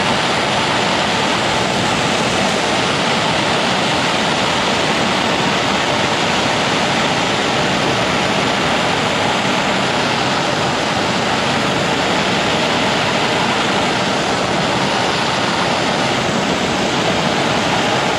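Steady, loud rushing hiss of a heat tool blowing on freshly painted wrenches to heat-cure the coating.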